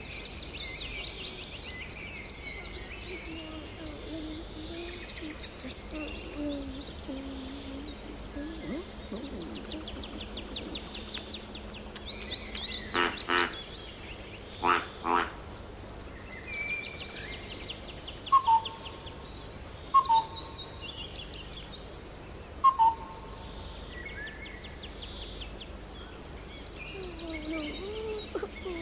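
Woodland birds singing, with chirps and rapid trills throughout. Around the middle come two loud, harsh double calls, then three loud two-note calls, each falling from the first note to the second, a couple of seconds apart.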